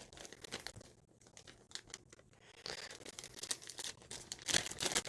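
Plastic packaging crinkling and rustling, with small clicks, as microphone accessories are handled and unpacked.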